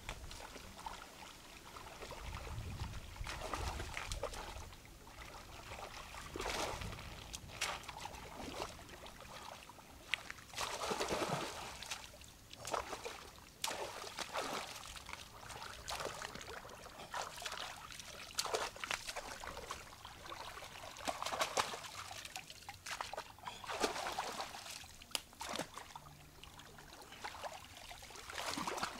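Water splashing and dribbling in irregular bursts as a person moves about in shallow, muddy water.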